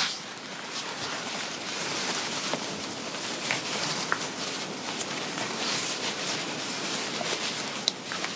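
Fabric rustling and rubbing as a garment is handled and adjusted on the wearer, a steady soft swishing with a few small ticks.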